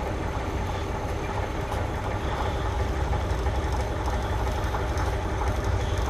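Diesel switching locomotive idling with a steady low rumble.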